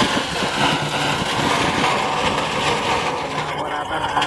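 Dump truck's diesel engine running hard with a dense rushing noise over it; the rushing falls away near the end.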